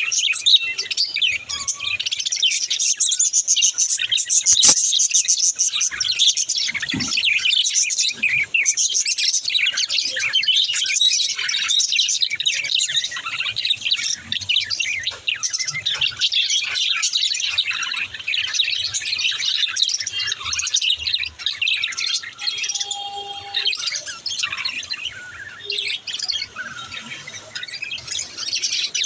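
A flock of budgerigars chirping and chattering without a break, a dense high-pitched twitter of overlapping calls.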